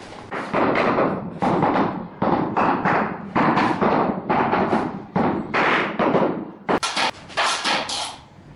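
A steady series of knocks, about two a second, as the butt of a wooden tool handle taps a large ceramic floor tile down into its bed of mortar to level it. The knocks near the end are sharper and brighter.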